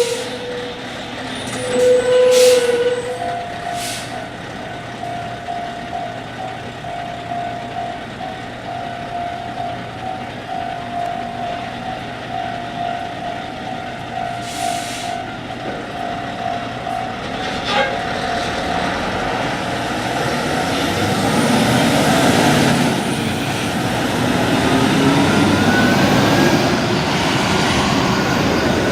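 A level-crossing warning signal rings as a steady, evenly repeated tone for about fifteen seconds, then stops. Brief air-brake hisses come from heavy vehicles, and in the last several seconds a heavy vehicle rumbles past, growing louder. A short horn-like tone sounds twice near the start.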